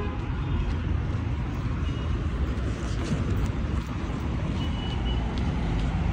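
Steady road traffic rumble of a city street, with a faint short high tone about two seconds in and a longer one near the end.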